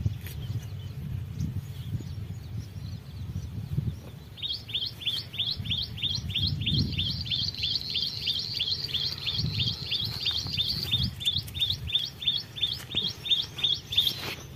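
A bird calling a fast run of identical short, downward-sliding notes, about three or four a second. The calls start about four seconds in and stop just before the end, over a low rumble.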